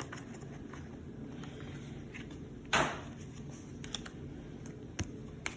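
Pokémon card packaging and cards being handled: one brief rustle about three seconds in and a couple of light clicks near the end, over a steady low room hum.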